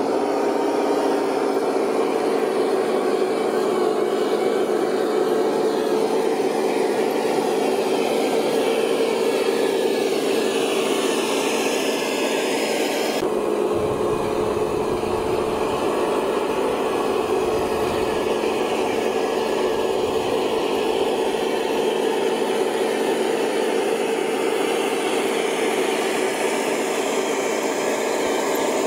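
Radio-controlled model trucks' small electric motors whirring steadily, with slowly shifting pitches higher up; the sound changes abruptly about 13 seconds in.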